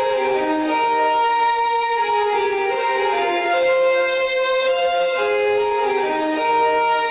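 Instrumental ringtone melody: a single lead line of held notes stepping up and down over a soft accompaniment.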